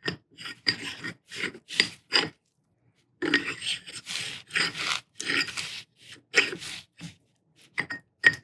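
Small brush scraping along the spiral grooves of a steel lathe-chuck scroll, working grease into the channels in short repeated strokes, about two a second, with a brief pause about three seconds in.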